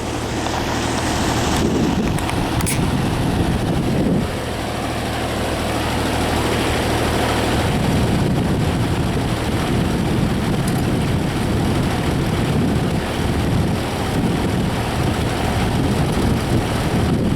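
Grasshopper 722D mower's 22 hp Kubota diesel engine running steadily.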